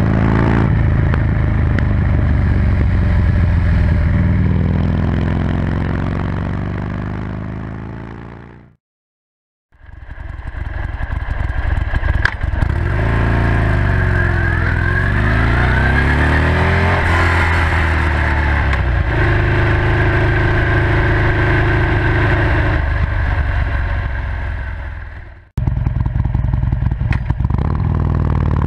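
Buell XB9SX V-twin engine heard close to the exhaust. It runs under way and fades out about nine seconds in. Then, with the stock muffler, it is revved up and down several times and settles to a steady run. After a sudden cut it runs through a Penzl exhaust with its flap open.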